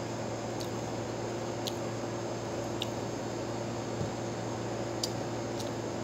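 Eating grapes by hand: a few short, crisp clicks from chewing and handling the grapes, and a soft low thump about four seconds in, over a steady background hiss and hum.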